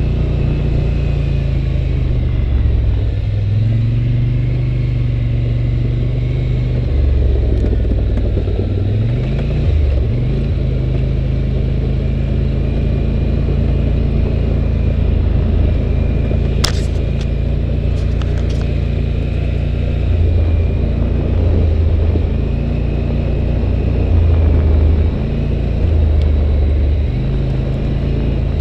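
2011 Polaris Sportsman 850 Touring ATV's parallel-twin engine running under way, its pitch dropping and climbing again twice in the first ten seconds as the throttle eases off and opens, then holding steady. A few sharp knocks come roughly halfway through.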